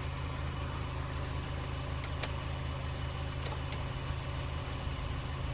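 Portable 12 V electric tyre inflator (WindGallop air compressor) running steadily: a low motor-and-piston hum with a hiss above it and a few faint ticks.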